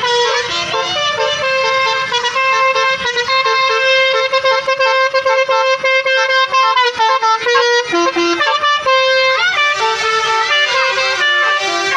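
Basuri telolet bus horn playing a tune: a string of loud, steady horn notes stepping from pitch to pitch, with short sliding notes about nine seconds in.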